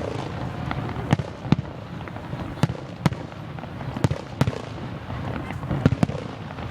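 Fireworks display: sharp bangs of shells bursting at irregular intervals, roughly one a second, over a low rolling rumble.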